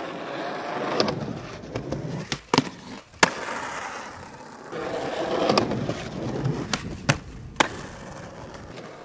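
Skateboard wheels rolling on pavement, with two pairs of sharp board clacks, each pair about half a second apart.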